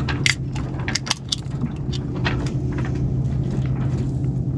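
A boat engine running steadily with a low, even hum, with a few sharp clicks and taps in the first second or so.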